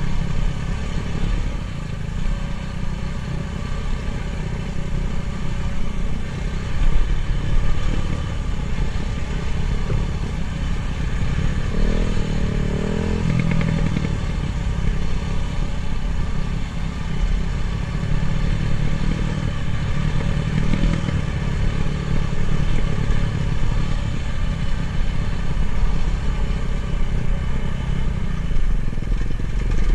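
Dirt bike engine running while riding a trail, its note rising and falling with the throttle, most clearly about twelve to fourteen seconds in.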